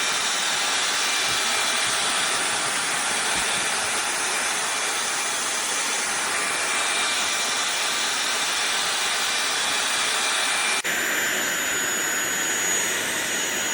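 SunSare X7A cordless stick vacuum running steadily, a high motor whine over a rush of airflow. About eleven seconds in the sound breaks for an instant, and the whine then sits at a different pitch.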